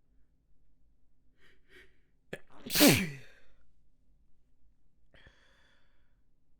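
A person's sneeze about halfway through, one sneeze of a snotty sneeze fit, after two short catching breaths; its voiced part falls in pitch. A short breathy sound follows near the end.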